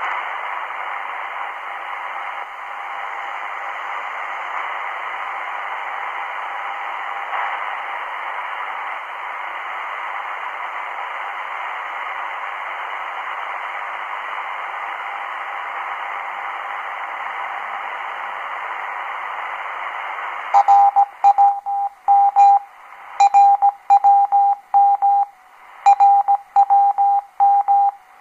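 Shortwave receiver hiss and static on 9996 kHz with the RWM transmitter off. About 20 seconds in, the station's Morse code identification "RWM" starts: a single tone keyed on and off in short and long beeps, louder than the static.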